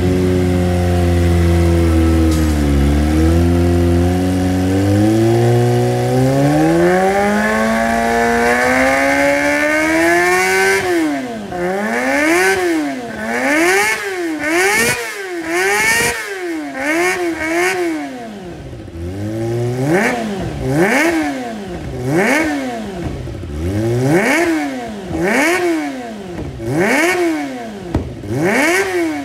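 Kawasaki ZX25R's 250 cc inline-four sport bike engine free-revving through a Prospeed Shark Predator exhaust with its dB killer baffle fitted. It runs at low revs for several seconds, climbs steadily in revs, then is blipped repeatedly, the revs rising and falling about once a second.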